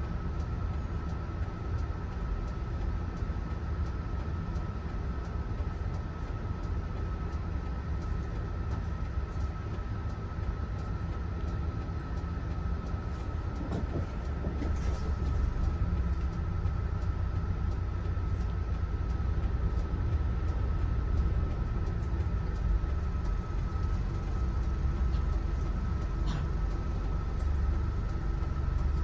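Mitsubishi Fuso Aero Ace coach running, heard from inside the cabin: steady engine and road rumble with a thin steady whine on top, getting a little louder about halfway through.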